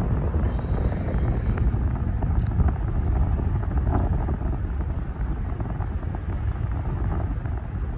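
Wind buffeting the phone's microphone as it travels quickly through the air, a steady low rumble, with the running of the vehicle carrying it underneath.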